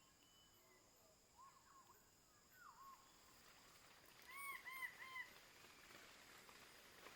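Bird calling: a few soft arched whistled notes, then a louder run of three quick arched notes a little past halfway.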